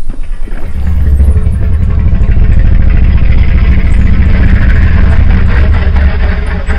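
Made-up Spinosaurus roar sound effect: a long, loud, low rumbling growl that swells about a second in, turns harsher in the middle and eases slightly near the end.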